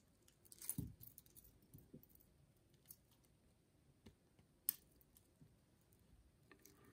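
Faint clicks and light metallic clinks of a stainless steel link watch bracelet being handled and detached from a smartwatch's lugs, with one sharper click about two-thirds of the way through.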